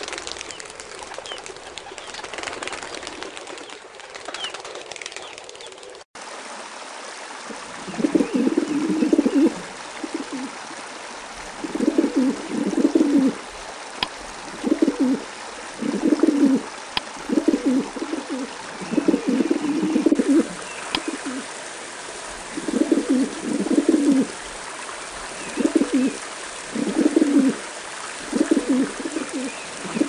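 Feral rock pigeons cooing: low, repeated coos in bouts about a second long, coming every one to two seconds from about eight seconds in. Before that there are only a few faint, higher calls over a steady hiss.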